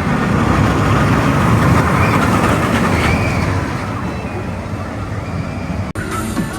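Zamperla family roller coaster train rumbling along its track with a whine that rises and falls, loudest two to three seconds in. Near the end the sound cuts off abruptly and music begins.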